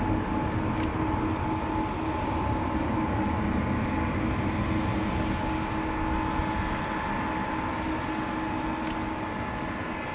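A Boeing 777-200ER's twin Pratt & Whitney PW4000-series turbofans running at low taxi thrust as the jet lines up for takeoff: a steady rumble and hiss with a steady whine over it.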